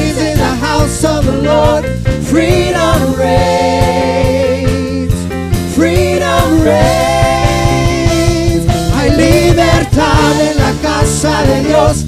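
Worship team singing an upbeat gospel praise song, several voices on microphones over a live band with drums and electric guitar keeping a steady beat.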